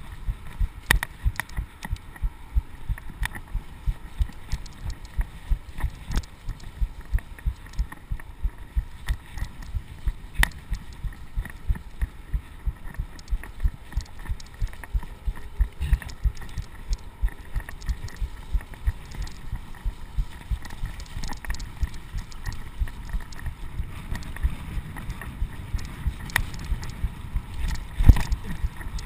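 Mountain bike riding a dirt trail, heard through a chest-mounted GoPro in its housing: a steady rhythm of muffled low thumps, about two to three a second, over a low tyre rumble, with one heavier knock near the end.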